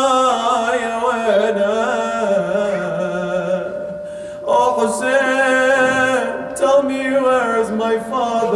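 A man's solo voice chanting an Arabic mourning elegy for Imam Hussain in long, held, wavering notes. There is a short pause for breath about four seconds in before the next phrase.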